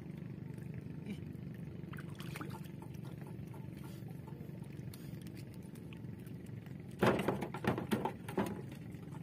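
Low steady background of water around a small boat while a fishing line is hauled in by hand, with a brief loud flurry of splashing and knocks about seven seconds in.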